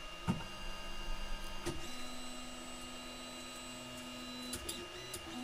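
Stepper motors of a Sovol SV01 3D printer whining in a steady tone as an axis is jogged, starting about two seconds in and pausing briefly before starting again near the end. Two sharp clicks come first, before the motion.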